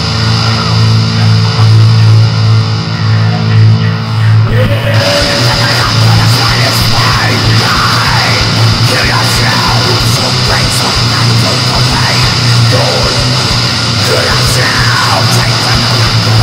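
Loud, distorted heavy music with a strong low droning tone; about four and a half seconds in a harsh hiss joins and squealing sweeps rise and fall above the drone.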